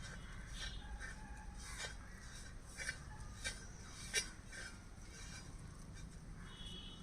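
A spoon mixing a spice-and-lemon-juice marinade in a bowl, with a few light clinks against the bowl, the sharpest about four seconds in.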